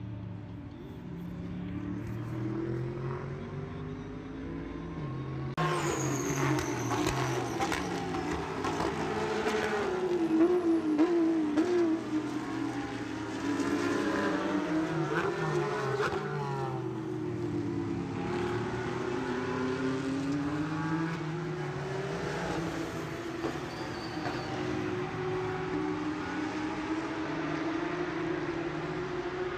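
Race car engines at high revs, their pitch sweeping up and down as cars accelerate and pass; the sound gets louder and busier about five seconds in.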